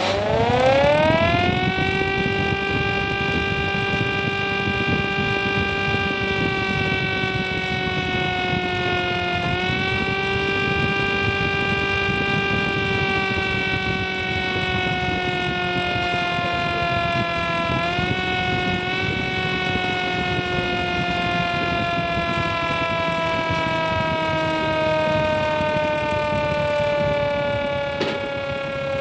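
Motor-driven air raid siren spinning up, its tone rising steeply in pitch, then holding a steady loud tone that slowly sags lower. It gets brief small lifts in pitch about a third of the way in and again past halfway.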